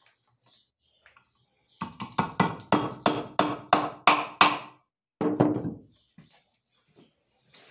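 Small hammer driving nails into a wooden box frame: a quick run of about a dozen sharp strikes, roughly four a second, each with a short ring, then two more after a brief pause.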